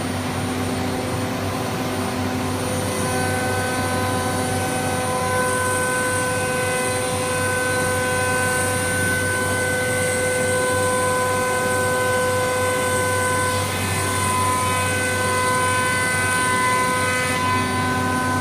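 CNC nesting router for furniture board running, its spindle and machinery giving a steady whine of several held tones over a noisy hum, some tones fading in and out over the seconds.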